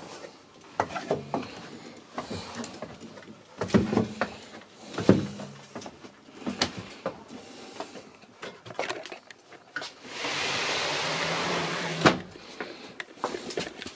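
Scattered knocks and clicks of movement and handling in a small cabin, with a steady hiss lasting about two seconds near the end.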